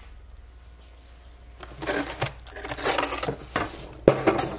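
Plastic bags rustling and crinkling, starting about a second and a half in, as rolled cookie-dough logs are put away in a freezer. There is a sharp knock about four seconds in.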